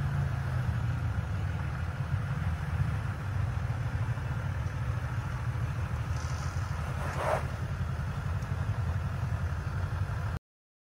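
Off-road vehicle's engine running steadily at low speed as it crawls through a trail obstacle, with one short sharp noise about seven seconds in. The sound cuts off abruptly shortly before the end.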